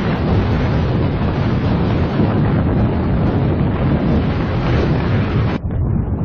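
Strong blizzard wind buffeting the microphone: a loud, continuous rumble and roar. The higher part cuts out abruptly near the end.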